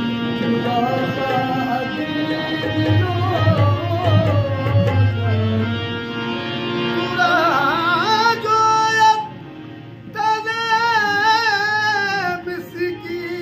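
Qawwali singing: harmoniums playing steady held notes under a male lead singer's long, wavering sung phrases, with a brief break in the singing about nine seconds in.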